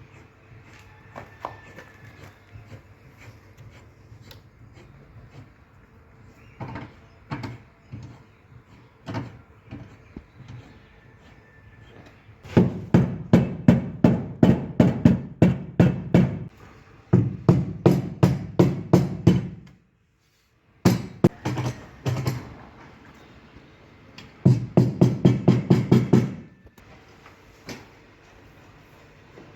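Rapid hammer taps on the sheet-metal sill of a Kia Carens, about four or five a second in runs of a few seconds, with scattered single knocks in the first part: the dented panel is being tapped back into shape cold, without filler or repainting.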